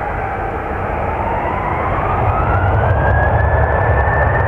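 Boeing 737-800's CFM56-7B jet engines at takeoff power on the takeoff roll: a fan whine rising in pitch over the first three seconds and then holding steady, over a low rumble that grows louder.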